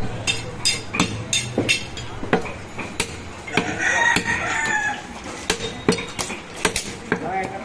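Cleaver chopping through goat meat and bone on a block: sharp, irregular strikes, about one to two a second. Near the middle a rooster crows once, for about a second.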